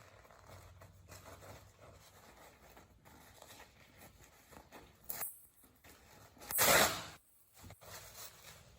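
Paper towel rustling softly, with a short crinkle about five seconds in and a louder rip lasting about half a second near the end.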